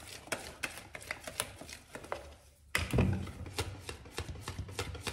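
A wire whisk beating thick spätzle batter in a plastic bowl, making a regular clicking stroke about three to four times a second, as the batter is worked until it bubbles. The strokes pause briefly a little after two seconds, and a dull thump follows near three seconds before the beating resumes.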